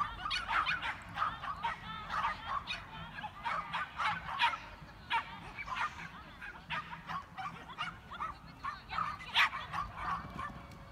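Dog barking in short, high-pitched calls, repeated in an irregular string.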